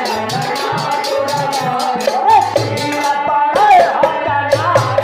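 Instrumental interlude of a Hindi devotional bhajan: a melodic lead line with pitch glides over a steady beat and a shaker-like rattle.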